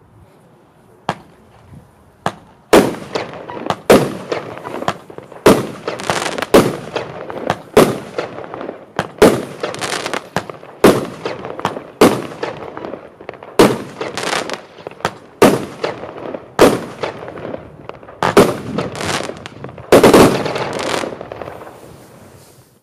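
Triplex Anarchy consumer fireworks battery (cake) firing a string of shots. After two small cracks, a loud bang comes about once a second, each trailing off into a haze of sound, and a thicker, longer volley near the end fades out.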